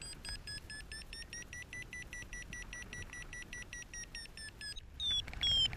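Paragliding variometer giving rapid, evenly spaced climb beeps whose pitch rises a little, the tone of lift in a thermal. Near the end the beeps break off briefly, then return higher and louder, signalling a stronger climb, over a low rush of wind.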